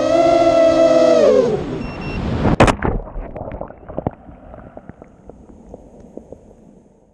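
Onboard audio of an FPV racing quadcopter's four brushless motors (Emax 2205-2600kv, 5-inch props) whining at a steady high pitch. The pitch sags and dies away as the quad is disarmed and drops. About two and a half seconds in there is a sharp splash as it hits the creek, then muffled underwater gurgles and clicks that fade.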